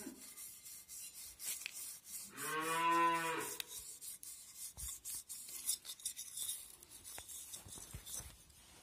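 A salted lemon half scrubbed against a copper tumbler, a gritty scratching in short uneven strokes. About two and a half seconds in, a cow moos once, the loudest sound here, lasting about a second and a half.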